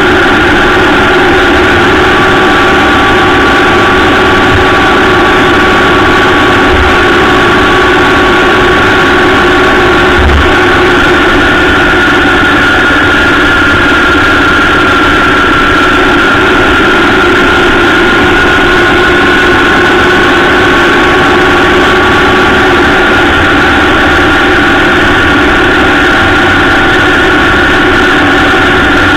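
Honda Gold Wing motorcycle engine running steadily at cruising speed, its steady hum mixed with road and wind noise. The engine note drifts up slightly and settles again about halfway through.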